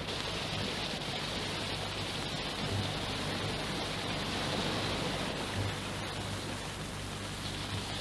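Steady hiss with an even low hum beneath it.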